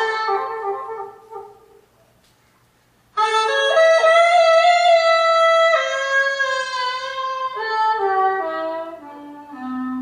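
Recorded music played back through a pair of Zigmahornet horn-cabinet speakers with Bose HVC full-range drivers: a solo melody line fades out to a pause about two seconds in, then comes back with a long held note and a phrase that steps down in pitch near the end.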